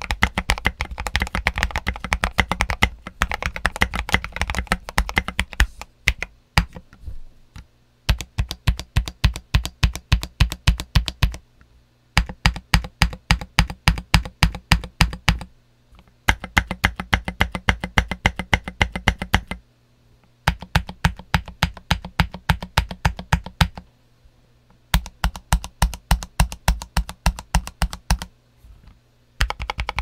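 Typing on a Redragon K617 mechanical keyboard with Redragon Red linear switches and SA-profile keycaps. The keystrokes come in runs of a few seconds with short pauses between them, some runs fast and evenly paced.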